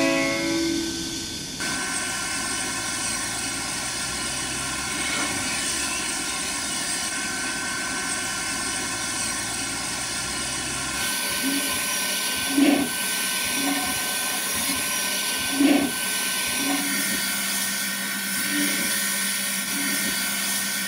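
Steady hiss and background noise. From about eleven seconds in, a Maffei-built 1918 Bavarian steam locomotive gives slow exhaust beats about one a second, two of them louder, over hissing steam.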